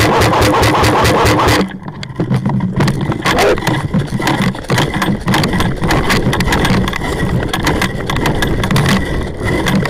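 Airsoft electric rifle firing on full auto: a fast, even mechanical rattle of shots. It is loudest for the first second and a half, then goes on a little quieter.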